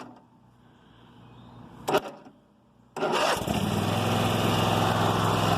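Riding lawn mower engine: a short sharp burst about two seconds in, then about three seconds in the engine starts and runs steadily. It starts because the rusted starter solenoid is jumped with a solid piece of metal.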